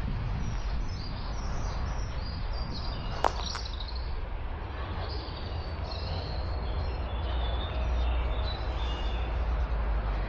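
Wild birds singing, many short high chirps and trills overlapping, over a steady low rumble. A single sharp click about three seconds in.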